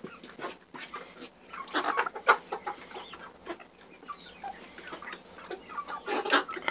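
Hens clucking and making short calls, with louder bursts about two seconds in and near the end, and a sharp tap about two seconds in.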